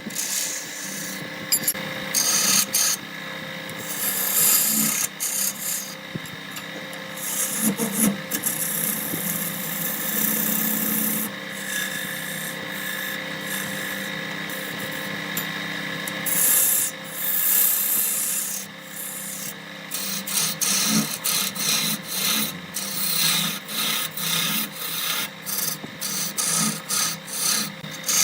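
Wood being worked on a spinning lathe: a steady hum under a scraping hiss against the wood. In the last third it breaks into rapid, uneven scrapes.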